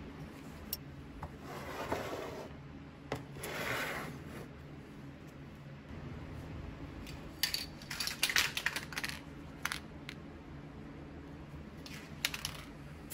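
Light clicks and clatter of small hard parts being handled on a workbench, with two brief rustling swells early on and a quick run of clicks about halfway through.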